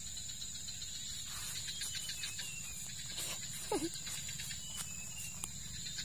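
Steady high chirring of forest insects, with a run of faint ticks and, about halfway through, one short call sliding quickly downward in pitch.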